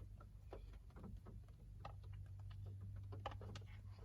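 Faint scattered clicks and small mouth sounds of eating frozen custard with a spoon, over a steady low hum.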